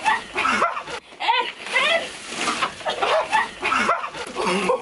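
Repeated high, wavering screams and yells, several in a row, a startled reaction to a tub of cold snow being dumped onto someone asleep in bed.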